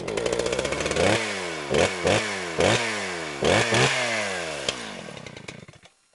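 Chainsaw engine revved in a series of about six quick throttle blips, each pitch rising sharply and falling back slowly, fading out near the end.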